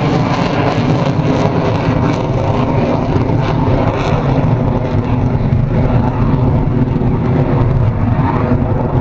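F-16 fighter jet's engine running loud and steady as the jet climbs away overhead.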